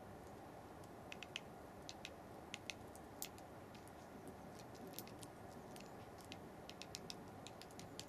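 A great tit pecking at a heart-shaped birdseed cake: faint, irregular sharp taps, some in quick clusters, over a low steady hiss.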